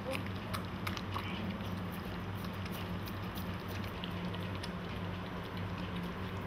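Two golden retriever puppies eating together from one plastic bowl: wet chewing and lapping with many irregular little clicks, over a steady low hum.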